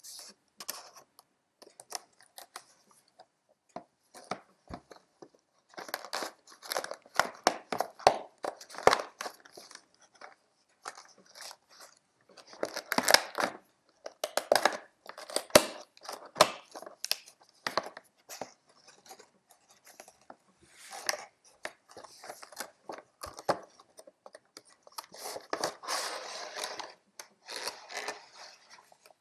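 Cardboard box and clear plastic blister tray of a doll accessory pack being handled and opened: irregular crinkling, tapping and tearing noises, with denser stretches of rustling about a quarter of the way in, near the middle and near the end.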